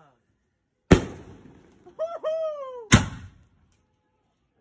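Two loud 6-inch aerial firework shell bursts about two seconds apart, each a sharp bang that echoes away. Between them comes a short, high, wavering tone that falls away at the end.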